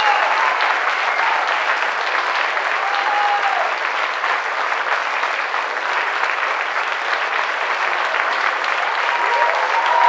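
Theatre audience applauding steadily during a curtain call, with a couple of long calls rising over it about three seconds in and near the end.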